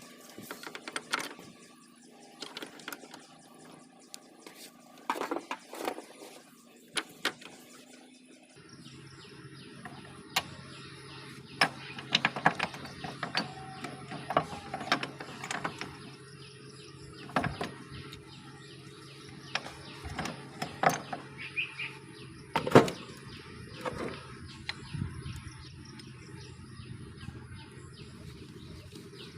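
Intermittent sharp metal clinks and knocks of tools and gearbox parts being handled. A steady hum starts about nine seconds in and carries on under them.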